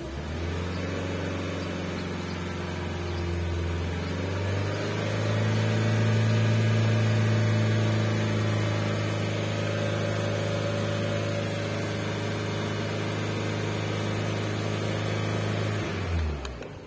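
Peugeot 407 petrol engine running to warm up after an ignition coil replacement, heard from inside the cabin. It runs steadily, rises to higher revs about four to five seconds in and holds there, then drops back near the end.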